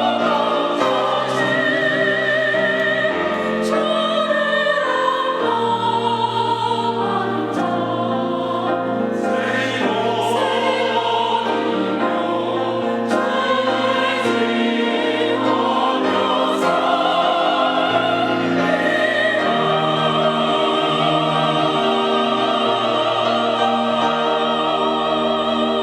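Choir singing a sacred song in sustained, vibrato-laden phrases.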